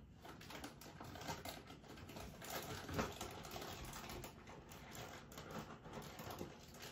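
Light, rapid clicking and rustling as things are handled while a cat's dinner is being got ready, with a sharper click about three seconds in.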